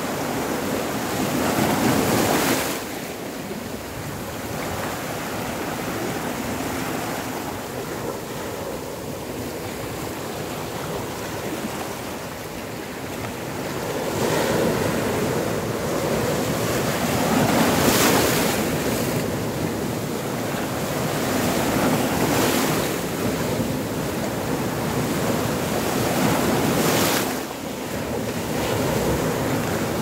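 Rough sea waves breaking and washing over rocks: a continuous rush of surf that swells louder each time a wave crashes, every few seconds.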